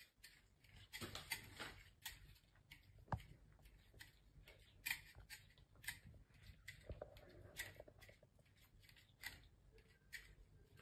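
Faint, irregular clicks and taps of a cat licking inside a small metal bowl stuck over its face, the bowl knocking lightly as it moves; the sharpest tap comes about three seconds in.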